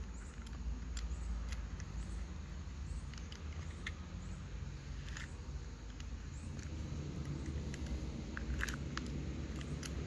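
Scattered light clicks and ticks of a plastic-bodied neutral safety switch assembly with its metal band and wire leads being handled and turned over in the hands, with a small cluster of clicks near the end, over a low steady hum.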